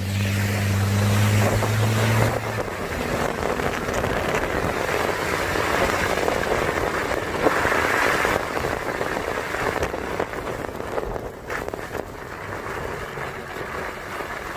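A car driving on a wet, slushy road with the window down: a steady hiss of the Blizzak winter tyres through slush, mixed with air noise. A steady low engine hum is heard for the first two seconds and then drops away.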